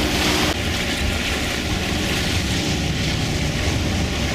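A sailboat's inboard engine drones steadily as the boat motors through choppy water, with wind and waves over it. About half a second in, the wind and water noise changes suddenly.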